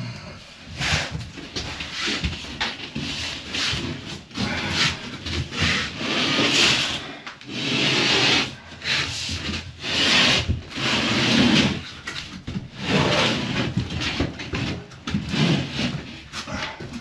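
A drywall panel scraping and rubbing against wood framing in irregular strokes as it is shoved and stood up into place. It is catching on a tight corner.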